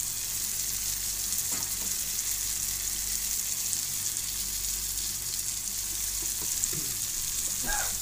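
Onion-and-tomato masala sizzling steadily in hot oil in a pan while a metal spoon stirs turmeric powder into it.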